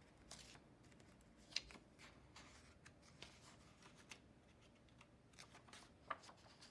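Faint rustling and light ticks of a picture book's paper page being handled and turned by hand.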